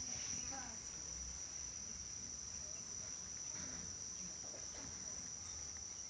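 Steady, unbroken high-pitched insect trill, with a few faint squeaks in the first second.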